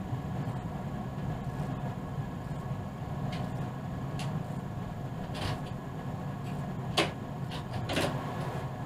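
ÖBB class 4124 electric multiple unit running, heard from inside the driver's cab: a steady low rumble with a faint even hum, and several sharp clicks or knocks, the loudest about seven seconds in.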